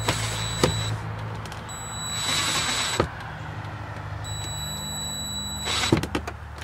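Cordless DeWalt drill driving a screw through a dash-mounted bracket: three runs of high motor whine, each growing louder near its end and stopping with a sharp click, over a low steady hum.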